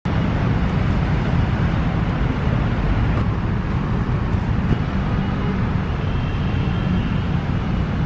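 Steady low rumble of city road traffic.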